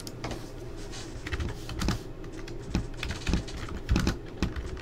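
Typing on a computer keyboard: irregular key clicks, with a few harder strokes in the second half.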